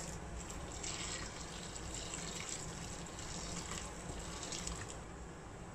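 Hot water poured from a steel kettle into a bowl, a steady splashing pour that stops about five seconds in.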